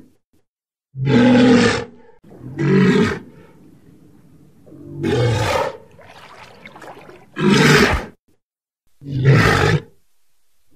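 Walrus calling: about five loud, rough calls in a row, each just under a second long, with short pauses between them.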